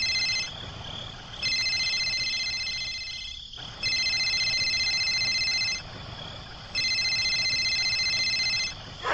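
Telephone ringing: an electronic trilling ring of several high tones, repeating in bursts of about two seconds with gaps of about a second between them.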